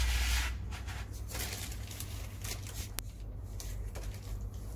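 Hands handling the soldering station and its iron stand: a rustling scrape with a low thump at the start, then soft rustles and one sharp click about three seconds in.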